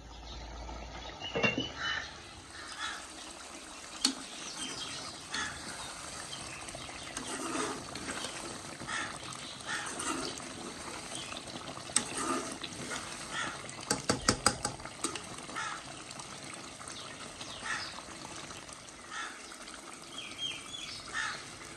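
Chicken curry simmering uncovered in a metal pot, the thick gravy bubbling and popping steadily, with a quick run of sharp clicks about two-thirds of the way in.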